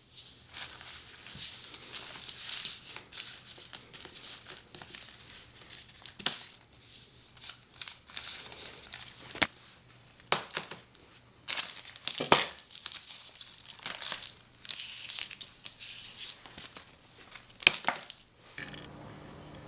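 A thin wrapper being crinkled and torn by hand, in irregular rustling bursts with a few sharp clicks in between, as a Kinder Surprise egg is unwrapped.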